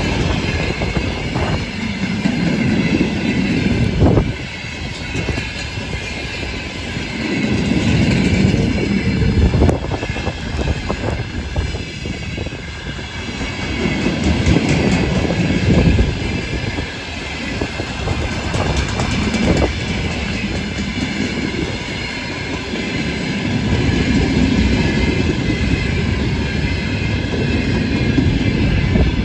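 Train cars rolling past behind a pair of VL10u electric locomotives, the wheels clattering over rail joints. The noise swells and fades every few seconds as each car goes by, over a steady hiss.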